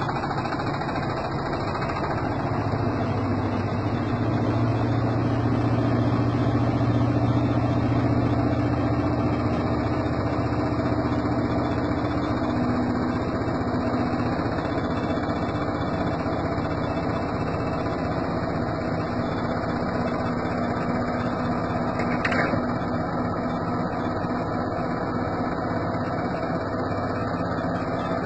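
LG washing machine's drum motor spinning at high speed in test mode, a steady hum with low tones that swell for the first several seconds and then hold, and one brief tick about 22 seconds in. The owner puts the machine's heavy spin noise down to worn drum bearings or a broken drum spider.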